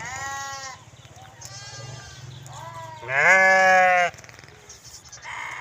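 Sheep bleating, several separate calls one after another; the loudest and longest lasts about a second, a little past halfway.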